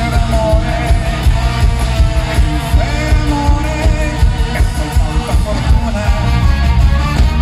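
Live rock band playing: drums keep a steady beat under electric bass, with a lead voice singing over them.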